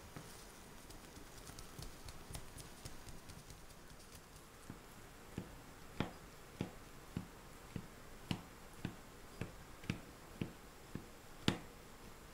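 A metal fork docking a raw pastry base: a run of sharp taps, about two a second, as the tines are jabbed into the dough. Before the taps start, soft faint ticking of gloved hands pressing the dough.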